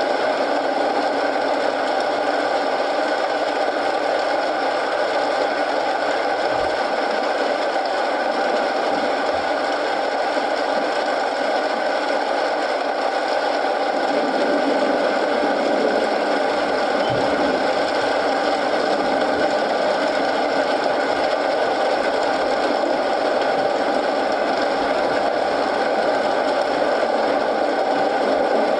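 Steady rain mixed with the crackle of a wood fire in a fireplace, with two soft low knocks from the fire.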